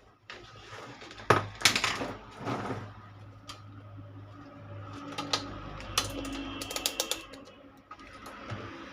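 Sharp clicks, knocks and clattering from hands and tools handling an amplifier's metal chassis and parts, loudest about a second and a half in, with a quick run of ticks near the middle. A low steady hum sounds underneath for most of the time.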